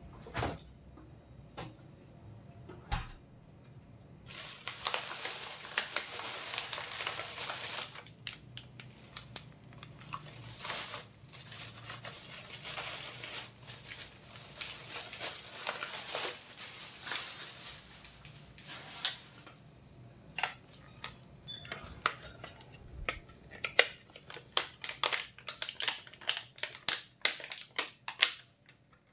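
Thin plastic bags rustling and crinkling as they are handled, in long stretches, then a quick run of sharp plastic crackles over the last several seconds as thin clear plastic packaging is worked.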